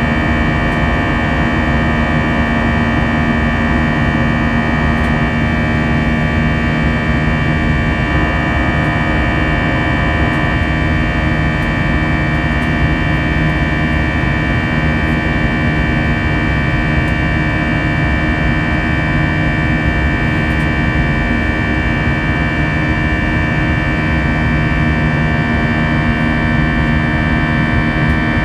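Airbus A320-200's jet engines heard from inside the passenger cabin: a steady, unchanging drone with several steady whining tones over a low rumble of airflow.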